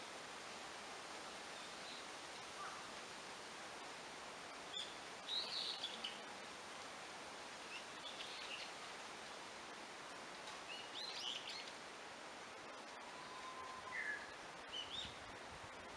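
Forest ambience: a steady hiss of background noise with several different small birds calling and chirping now and then, in short separate phrases scattered through.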